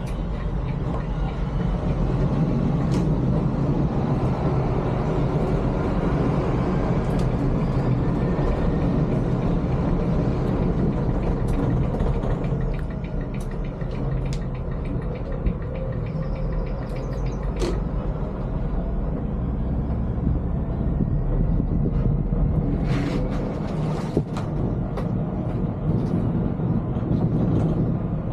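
Volvo B11R coach driving on the road, heard from the driver's cab: a steady low diesel-engine and road rumble. Scattered sharp ticks and clicks sound over it, thickest in the middle and near the end.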